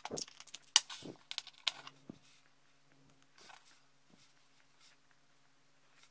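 Quick sharp clicks and rattles of a small clear plastic pot of tiny brass bearings being handled, packed into the first two seconds. Then only a few faint handling taps, with a low steady hum underneath.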